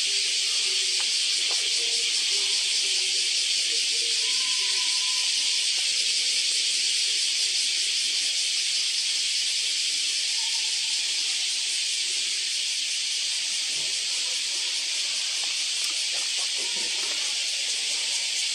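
Steady, dense high-pitched hiss of a summer insect chorus, with a fine rapid pulsing throughout.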